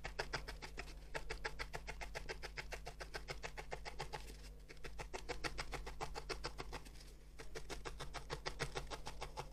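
A felting needle jabbing over and over into a small piece of wool roving on a foam pad, tightening the wool as it shapes a muzzle. It makes a quick, faint run of soft pokes, about six a second, with short pauses about halfway through and again about three quarters of the way through.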